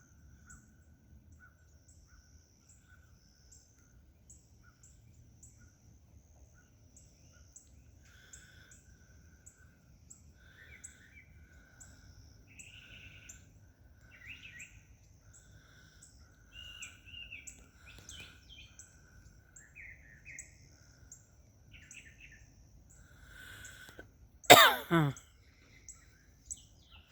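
Birds chirping and calling, with high short chirps repeating steadily and various brief calls in between. Near the end comes one loud, short, sudden sound.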